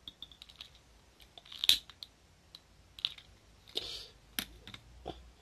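Empty glass-bottle pulse jet fuelled with alcohol, lit at the hole in its cap: a string of irregular sharp pops and crackles as the vapour ignites and sputters, with no steady rhythm. The sharpest knock comes about four and a half seconds in.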